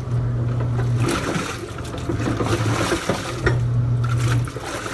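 Avanti STW20D2P portable washing machine agitating a wash load: the pulsator motor hums in surges, strongest in the first second and again between about three and four and a half seconds in, over water and clothes sloshing in the tub.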